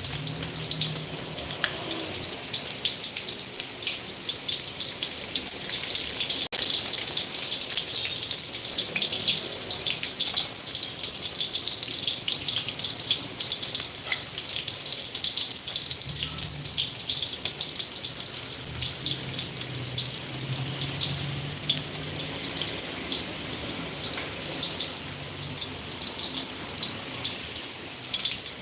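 Chicken meatballs frying in hot oil: a steady, dense crackling sizzle that does not let up.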